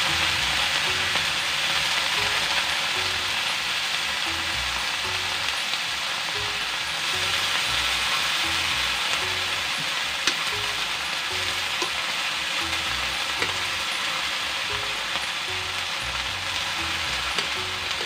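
Taro runners (takway) sizzling as they are stir-fried in a large metal wok, with a metal ladle scraping through them and a few sharp clinks against the pan.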